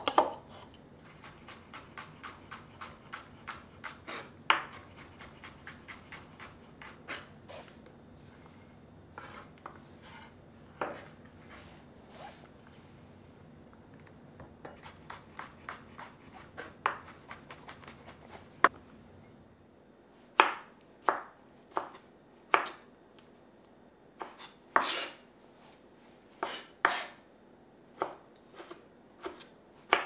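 Chef's knife chopping food on a wooden cutting board. Runs of quick light taps, about four a second, give way about two-thirds of the way through to slower, harder single chops.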